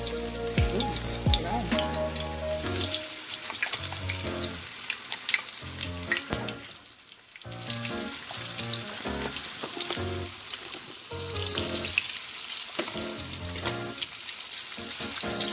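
Cut potato fries frying in hot oil in a cast iron skillet: a steady sizzle with lots of small crackles and pops. The sizzle briefly drops away about halfway through.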